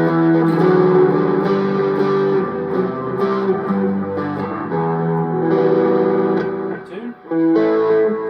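Electric guitar played through a pedalboard of effects, strummed chords ringing and changing every second or so, with a brief drop near the end before a fresh chord rings out.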